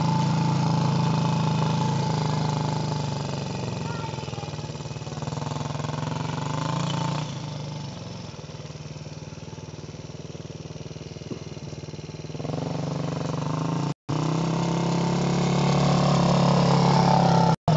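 Small youth ATV engine running steadily, fading as the quad moves away and growing louder again as it comes back close. The sound cuts out for an instant twice near the end.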